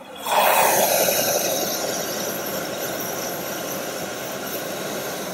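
High-pressure 100,000 BTU cast-iron propane wok burner running with a loud rushing flame noise. About a third of a second in it turns suddenly much louder as the gas pressure is turned up at the adjustable regulator, then settles slightly and holds steady.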